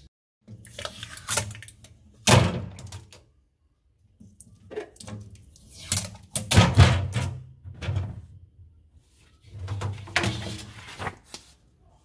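Clear plastic fridge drawers and shelves being slid and handled: knocks, thunks and scraping rattles that come in several bursts with short quiet gaps between them.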